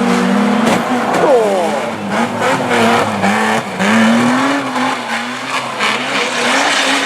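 Banger racing cars' engines running and revving on the track, with the engine notes wavering up and down and one falling quickly about a second in. Several short sharp knocks come through over the engines.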